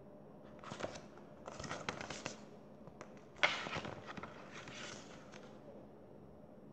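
Paper pages of a picture book rustling as the book is handled and lowered, in several short bursts of rustling and small clicks, with a sharper knock about three and a half seconds in.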